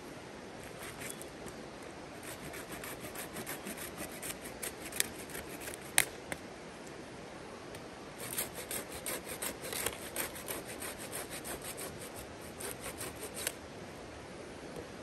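A hand tool working wood in quick repeated scraping strokes, in two runs with a short pause between them. One or two sharp clicks stand out in the middle.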